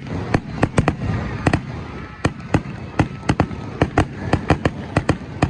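Fireworks going off: a rapid, irregular run of sharp cracks and bangs, about four a second, over a constant crackle.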